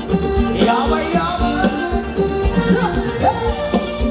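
Live Thai ramwong band music with a steady drum beat.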